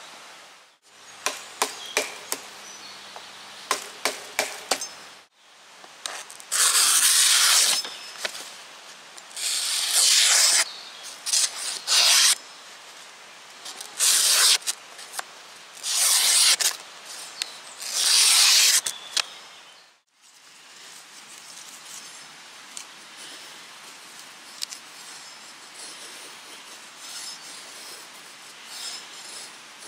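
Old Hickory carbon-steel knife slicing a sheet of paper: from about six seconds in, about six short cuts of roughly a second each, the loudest sounds here. A few light clicks come before them, and in the last third there is fainter, steady scraping as the blade shaves curls from a wooden stick.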